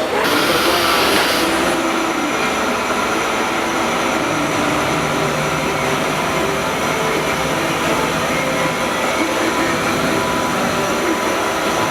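CNC machining centre milling: the spindle runs steadily with whining tones over the noise of the cutter working the part. A sharper high hiss in the first second and a half eases off.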